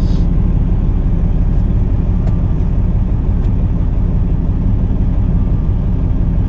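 Steady low rumble of a semi truck's diesel engine.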